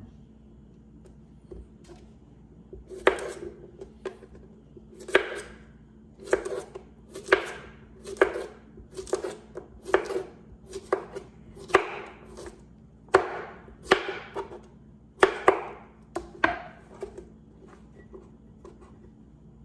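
Pickling cucumbers being packed into a glass mason jar: a run of sharp knocks, one or two a second, as they hit the glass and each other. The knocks start about three seconds in and stop a few seconds before the end.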